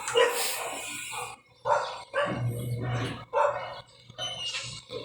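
A dog barking repeatedly in short bursts.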